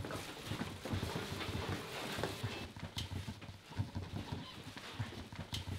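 Footsteps of people walking on a hard floor, irregular low thuds with a couple of sharp clicks.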